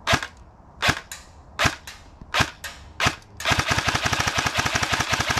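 Classic Army G3A3 airsoft electric gun (AEG) firing with a Kestrel V2 electronic trigger in binary mode: five single shots under a second apart, then a rapid string of shots for the last two seconds as quick trigger pulls and releases each fire a BB, giving near full-auto fire from semi-auto trigger work.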